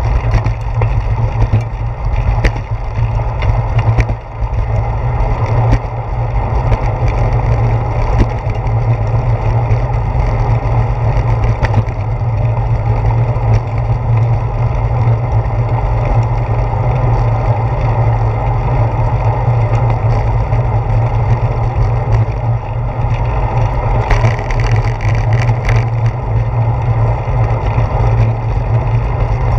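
Wind noise and road vibration picked up by a handlebar-mounted action camera on a moving bicycle: a loud, steady low rumble, with occasional sharp clicks and knocks from bumps in the path.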